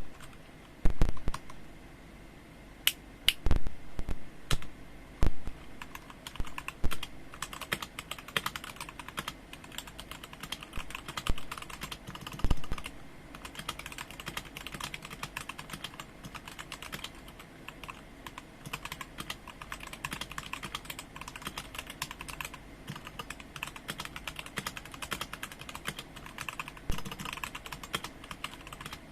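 Typing on a Rexus Daxa M84 Ultimate mechanical keyboard with Gateron Brown switches: a few separate, louder key presses first, then steady fast typing from about seven seconds in.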